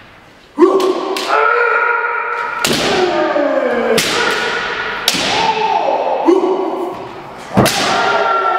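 Kendo fencers' long kiai shouts, sliding down in pitch and overlapping, over several sharp cracks of bamboo shinai striking each other and the armour. The sound starts about half a second in and echoes in a gymnasium.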